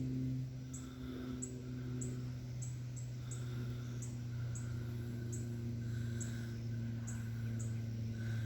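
Faint, short bird calls repeating every second or so over a steady low hum.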